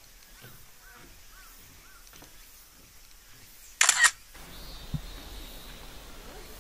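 A loud, short, sharp double click with a hissy high edge, about four seconds in, after a few faint high chirps. A steady low rush of noise follows.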